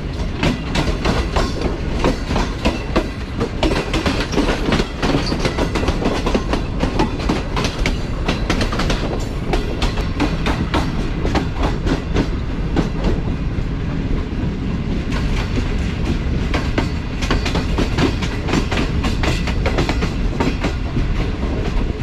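Passenger train running at speed on the line: steady wheel-and-rail rumble with rapid, irregular clicking of the wheels over the track.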